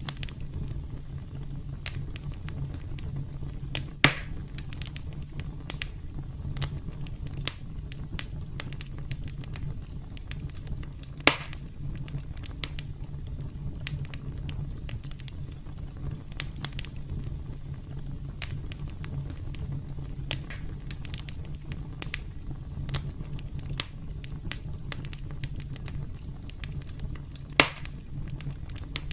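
Campfire crackling: a steady low rumble of the flames under frequent small crackles, with three louder pops about four, eleven and twenty-eight seconds in.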